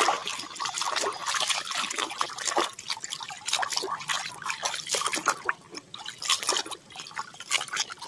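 A hand sloshing and swishing through a plastic basin of soapy water, with irregular splashes and drips.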